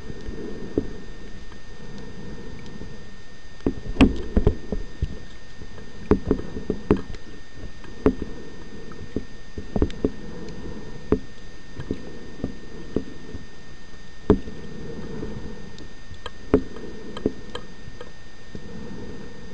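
Underwater ambience recorded on a coral reef: a steady low rumble of water with irregular sharp clicks and knocks, a cluster of the loudest about four seconds in and single ones scattered after.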